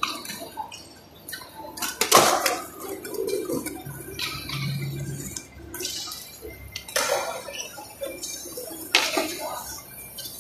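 Skateboards on smooth pavement: wooden decks clacking as tails pop and boards land, several sharp knocks with the loudest about two seconds in, and more near seven and nine seconds.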